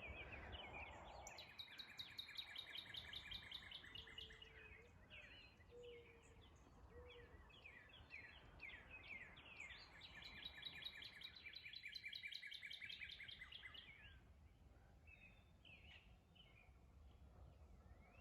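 Songbirds singing in the early morning, faint: two long, fast trills of rapidly repeated notes, one starting about a second in and one about ten seconds in, each lasting about three seconds, among scattered chirps, with a few short low whistles in between.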